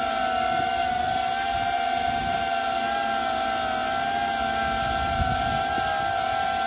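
DJI Avata 2 FPV drone hovering in place, its ducted propellers giving a steady, even whine that holds one pitch throughout.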